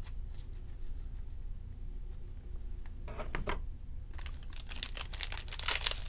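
Trading cards being handled with a few soft clicks, then, from about four seconds in, the rising crinkle of a foil trading-card pack wrapper being handled and torn open.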